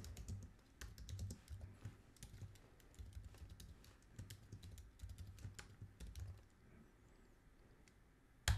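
Typing on a computer keyboard: a quick, uneven run of key clicks for about six seconds, a short pause, then one louder keystroke near the end.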